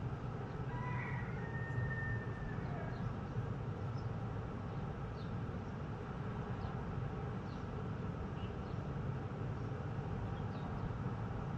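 Steady low hum of outdoor background noise, with faint short bird chirps scattered through it and a brief whistled call about a second in.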